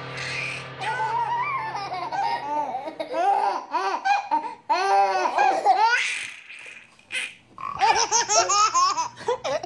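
A person laughing in repeated bursts, each laugh rising and falling in pitch, over a low steady drone that fades out a couple of seconds in and returns near the end.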